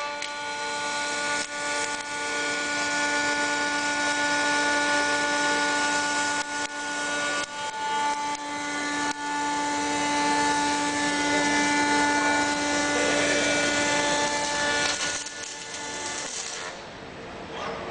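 Welding robot's MIG/MAG arc crackling and hissing steadily on a steel excavator arm, with several steady humming tones beneath. The arc cuts out near the end.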